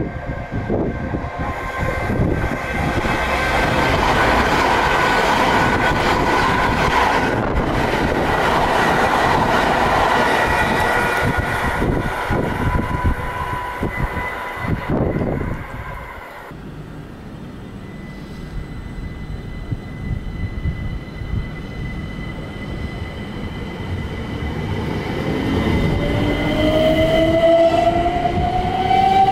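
Electrostar electric multiple unit on the move: the loud rumble and rush of the train on the track, with steady whining tones, for about the first half, then an abrupt drop to a quieter steady whine. Near the end the electric traction motor whine rises in pitch and grows louder as a train picks up speed.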